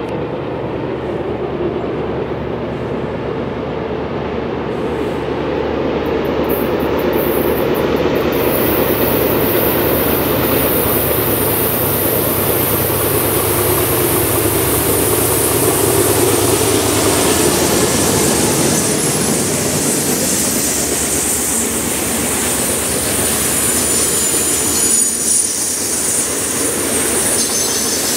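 A freight train led by two GE diesel locomotives, a C40-8W and a C44-9W, approaching and passing, with a steady rumble that grows louder over the first half. It then gives way to loaded covered hopper cars rolling by, with wheel-on-rail noise and a high hiss.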